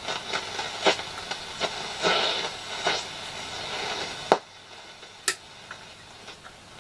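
Hacker Mini Herald RP17 transistor radio's speaker giving hiss and crackles with scattered clicks, as between stations, then cut off with a sharp click about four seconds in.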